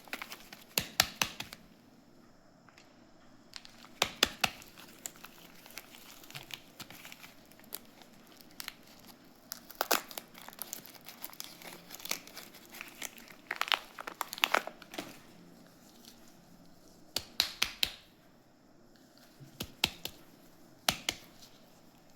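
Soap packaging being unwrapped by hand: wrapper crinkling and tearing in short bursts of crackles, with pauses between them.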